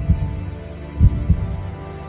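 Heartbeat sound effect over a steady held drone: low double thumps, lub-dub, about once every second and a quarter, marking a quiz countdown timer.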